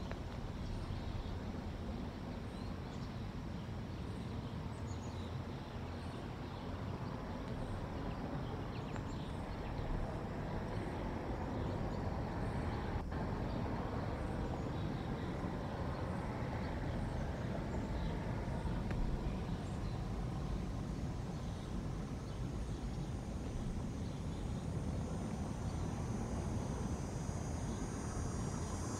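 Steady low outdoor rumble picked up by a nest camera's microphone, with faint high chirps throughout and a single click about halfway. Insects start trilling near the end.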